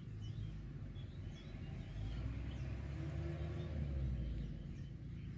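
A motor vehicle passing at a distance, its engine hum swelling to a peak about three seconds in and then fading, over a steady low rumble. Faint bird chirps come and go.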